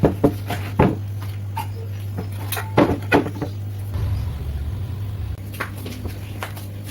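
A series of short knocks and clacks, a few in a cluster near the start and another cluster about three seconds in, over a steady low hum.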